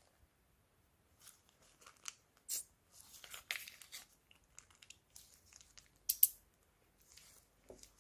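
Plastic bags being handled for slime-making, giving scattered crinkly, crackling sounds, with a denser run about three seconds in and two sharp snaps about six seconds in.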